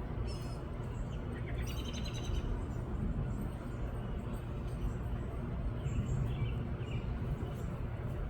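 A wren giving a few short, high chirps, a couple near the start and a few more a little past the middle, over a steady low background rumble.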